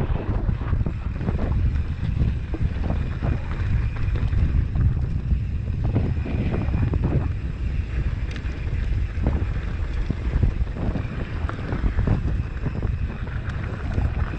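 Wind buffeting the microphone of a mountain bike rider's camera while riding fast down a rocky dirt trail, with the tyres crunching over gravel and the bike rattling over bumps in irregular knocks.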